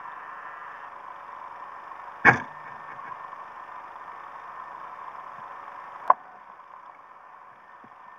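Steady hiss of an underwater recording, with one loud thump a little over two seconds in and a sharp click about six seconds in.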